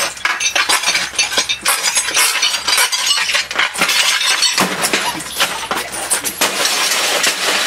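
Dense clinking and crunching of broken CRT glass and debris, mixed with knocks of a wooden table leg against the smashed television.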